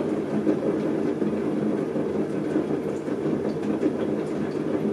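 Potter's wheel running at speed, a steady mechanical rumble and hum, as wet clay is pulled up between the fingertips into a mug wall.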